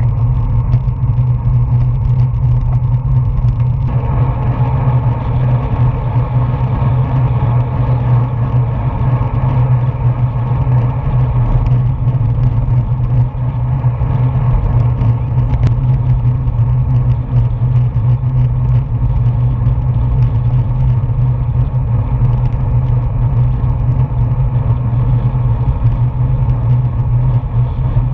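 Wind and road noise on a bike-mounted action camera's microphone while riding: a steady, loud low rumble.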